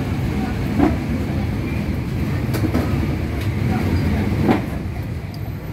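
Steady low rumble of street traffic, broken by a few sharp knocks and clatters.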